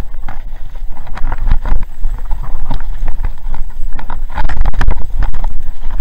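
Mountain bike running fast down a rough dirt and rock trail: a constant rumble of tyres and wind on the microphone, with a dense, irregular clatter of knocks and rattles as the bike is jolted over the rocks and roots.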